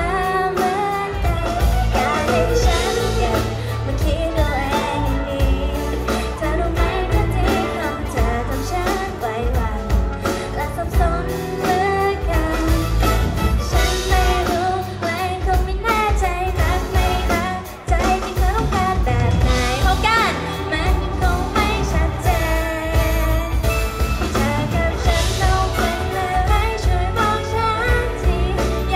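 A woman singing a pop song live into a handheld microphone over a band with drums and electric guitar, heard through the venue's PA.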